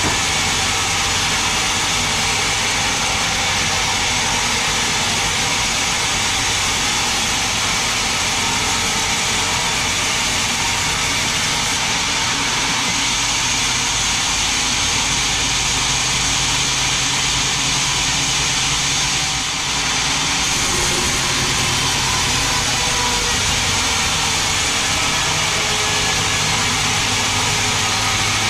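Large sawmill band saw running steadily while cutting a big mahogany log fed through on its carriage, a continuous loud machine drone with a steady hum under it.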